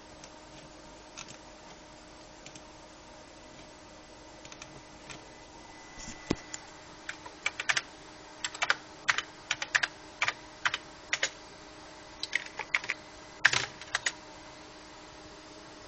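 Keys being typed on a keyboard: a few faint clicks, then about six seconds in, irregular runs of sharp key clicks. A steady electrical hum with a faint high whine runs underneath.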